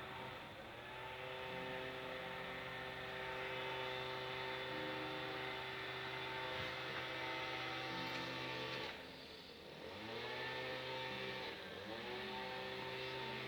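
A vehicle engine running at steady revs after picking up just after the start. About nine seconds in it drops away, then revs back up in two rising steps.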